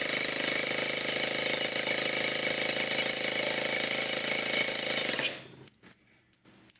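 Electric starter cranking a new XTM .28 nitro model engine for a compression test, with a gauge in place of the glow plug: a steady motor whine that cuts off suddenly about five seconds in.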